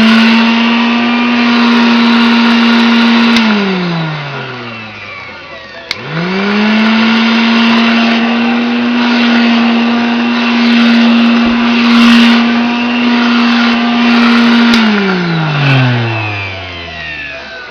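Freshly rebuilt Hoover Dustette handheld vacuum cleaner motor running with a steady whine, switched off about three and a half seconds in so its pitch falls as it winds down. It is switched on again about six seconds in, rises quickly back to a steady whine, and is switched off near the end, winding down once more.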